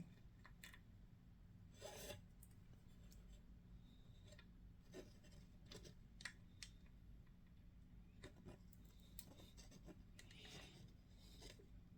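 Faint handling of small plastic model-aircraft parts: a few soft rubs and scattered small clicks over a low steady hum.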